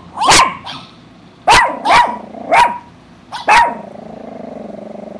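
Poodle giving about five short, sharp barks in the first four seconds, followed by a long, lower, steady sound.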